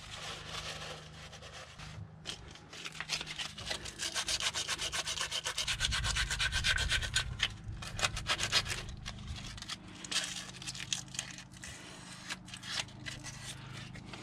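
Sandpaper rubbed by hand in quick back-and-forth strokes over the thermostat housing's seat on the engine, cleaning the surface for a new gasket. The strokes come thickest in the middle and thin out near the end.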